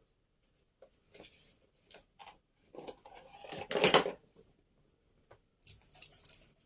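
Scattered clicks and rustling from small parts and packaging being handled, with a louder rustle about three to four seconds in.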